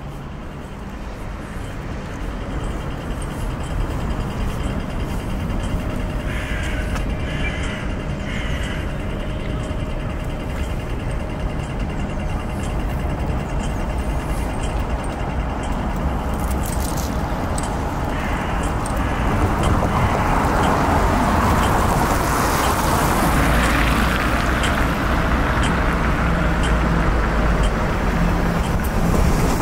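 City street traffic: road vehicles running, with a louder vehicle passing close about two-thirds of the way through.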